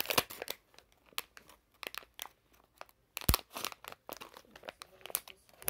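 Crinkling and crackling of a plastic foil toy packet being handled and cut open with scissors, in sharp irregular crackles, with a single thump a little over three seconds in.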